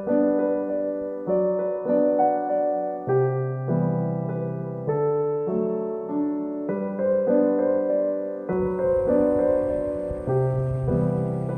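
Background music: a gentle piano or electric piano melody playing chords in a steady rhythm.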